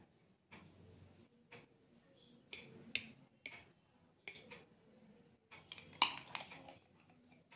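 Steel spoon clinking and scraping against glass cups as frothy coffee mixture is spooned onto the milk: a run of light, separate taps, with the loudest cluster about six seconds in.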